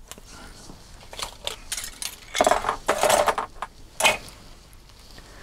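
Hard plastic model-kit parts clicking and clattering as they are handled and set down on the work mat, in an irregular string of knocks that is busiest in the middle with one sharp click near the end.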